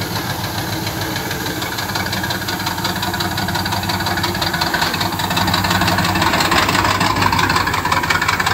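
A dump truck's diesel engine running, growing louder about halfway through as the truck pulls forward.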